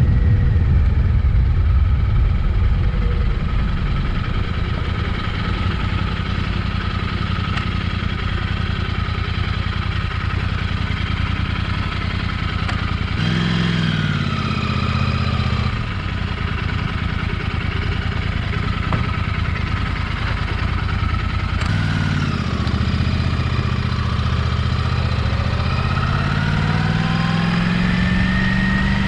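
Royal Enfield Interceptor 650 parallel-twin engine running as the bike is ridden, with wind rush on the microphone. About halfway through, the engine note drops as the bike slows. Over the last few seconds the pitch rises steadily as it accelerates.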